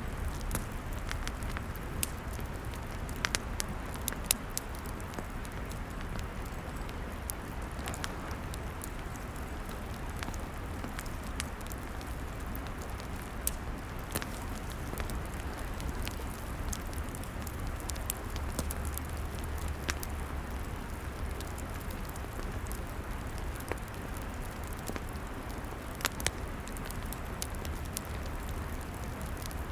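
Log fire crackling and popping steadily, with scattered sharp pops over a low, steady rush of flame.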